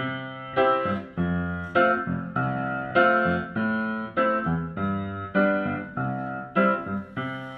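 Music: a keyboard, piano-like in tone, playing sustained chords, a new chord struck about every half second and left to fade.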